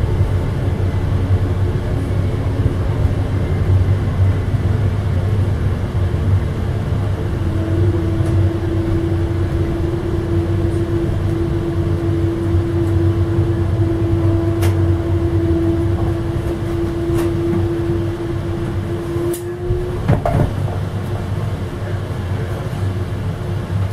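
Amtrak Illinois Zephyr passenger train rolling along the track, a steady low rumble. From about seven seconds in, a steady humming tone runs for about twelve seconds, and a few sharp clicks come near the end.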